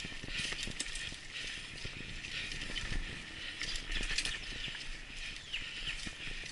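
Mountain bike riding over a dry, leaf-covered dirt singletrack: tires crackling through dead leaves, with repeated clicks and knocks as the bike rattles over bumps.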